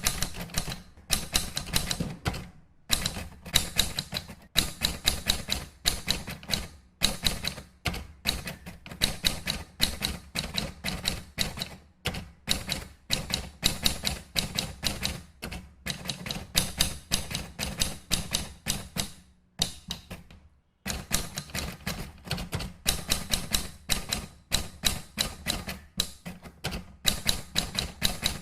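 Typewriter typing sound effect: fast runs of sharp key strikes in bursts separated by short pauses, with a longer break about two-thirds of the way through.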